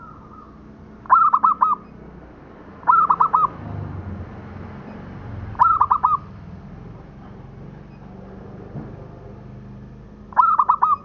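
Zebra dove (local Indonesian perkutut) cooing: four short phrases, each a quick run of four or five staccato coo notes.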